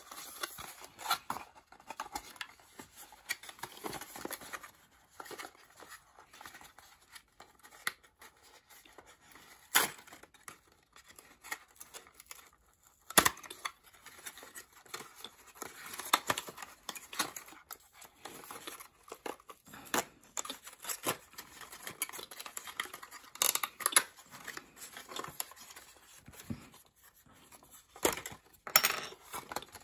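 Paperboard packaging insert being handled and pried apart by hand: irregular rustling, scraping and tearing of card, with a few sharp clicks or snaps now and then.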